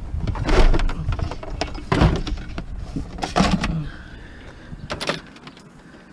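A few knocks and clattering scrapes, about four, as scrap metal and electronics are handled and moved, over low rumbling handling noise.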